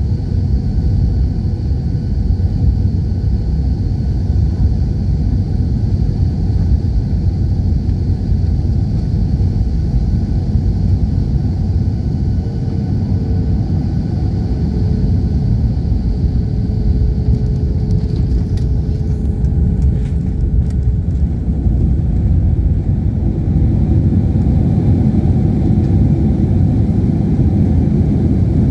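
Airliner cabin noise during landing and the runway roll: a loud, steady low rumble of engines and wheels on the runway, with a few brief knocks about two-thirds of the way through.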